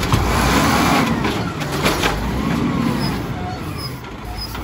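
Garbage truck's Amrep automated side-loader arm hoisting a recycling cart up its track, with the truck's engine and hydraulics running under load. A steady mechanical rumble and whine, with a few clanks from the arm.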